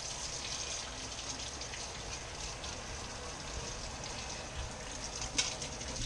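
Kitchen faucet running steadily into a stainless steel sink as a plate is rinsed under it, with a single light clink about five seconds in.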